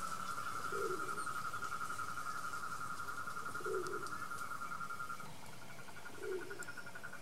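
Animal calls: a high, fast-pulsing trill that breaks off about five seconds in and starts again slightly higher, with a short low call about every two and a half seconds.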